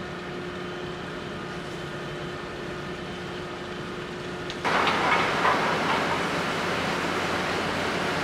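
Steady drone of a passenger-cargo ship's engines and machinery heard on board, with a few steady humming tones. Just under five seconds in it abruptly turns louder and rougher.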